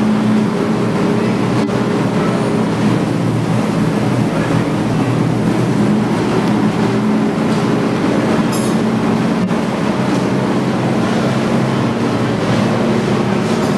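NASCAR Nationwide Series Dodge Challenger stock car's V8 engine idling steadily at an even pitch.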